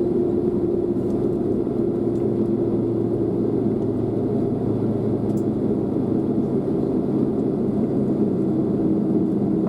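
Airliner cabin noise: the jet engines and airflow run as a steady rumble with a low hum, heard from inside the passenger cabin.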